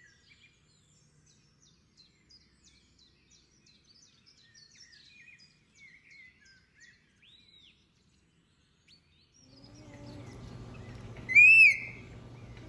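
Birds chirping and whistling faintly in quick, short notes for about nine seconds. Then a steady hum comes in, and one loud, shrill parrot squawk rises and falls near the end.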